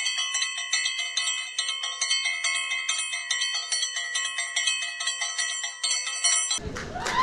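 Bright bell tones struck over and over, about three times a second, an effect dubbed on in editing. It cuts off suddenly near the end and is replaced by applause.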